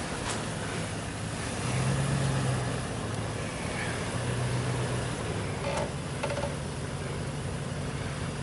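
Lifted Ram 1500 pickup's engine with a Magnaflow exhaust, running at low revs as the truck crawls over a snowy ridge. It swells a little with throttle about two seconds in and again around four seconds.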